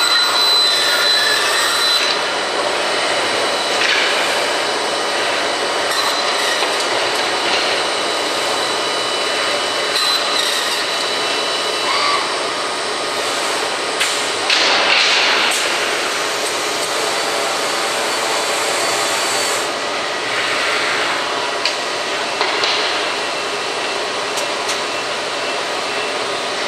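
PADE CNC BASIC bandsawing centre running: steady industrial machine noise, with a few short louder bursts, the strongest about fourteen seconds in.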